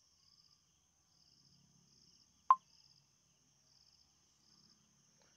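A single short, sharp electronic click about two and a half seconds in: a smartphone's touch sound as a photo is tapped to select it. Faint, evenly repeating high-pitched pulses run underneath.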